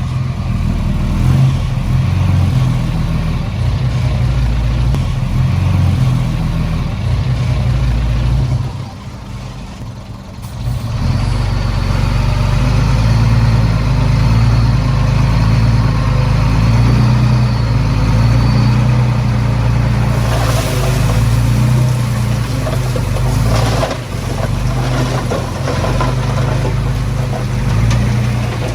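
Diesel engine of a Komatsu D20P bulldozer running hard while working, easing off briefly about nine seconds in, then picking up again.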